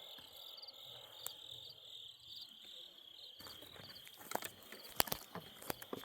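Crickets chirping steadily. From about halfway through, a scatter of short sharp clicks and taps joins them, the loudest about five seconds in.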